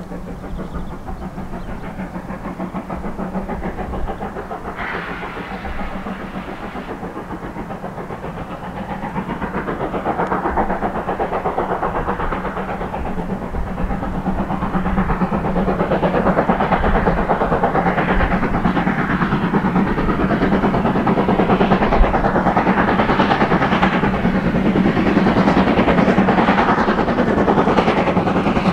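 Steam locomotive working hard with rapid exhaust beats, growing steadily louder as it comes closer.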